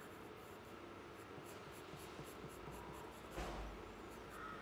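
Pencil scratching faintly on paper while shading a drawing, with one louder stroke about three and a half seconds in.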